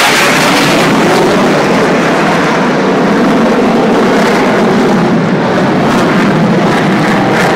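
Loud jet roar of a low F-16 fighter passing overhead and climbing away. The high hiss fades after the first second or two, leaving a lower, steady rumble.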